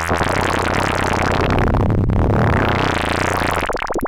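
Bastl Instruments SoftPop analog synthesizer playing a dense, noisy, chaotic texture over steady low bass tones, with a sweep that falls and rises again about halfway through; near the end the sound thins out.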